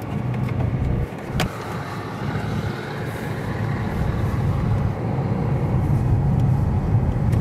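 Car driving, heard from inside the cabin: a steady low engine and road rumble from the tyres, growing a little louder in the second half as the car heads up the ferry loading ramp. One sharp click about a second and a half in.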